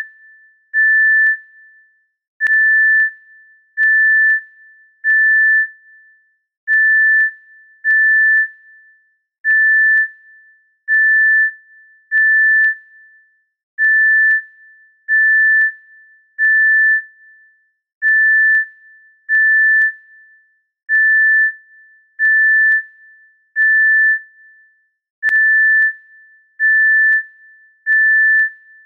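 Heart monitor (electrocardiograph) beep sound effect: a single high electronic tone beeping at an even pace, about one beep every second and a half, the rhythm of a steady heartbeat.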